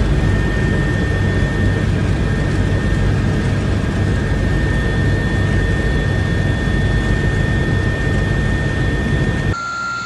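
Aircraft in flight heard from on board: a loud, steady engine noise with a constant high whine. It cuts off suddenly near the end.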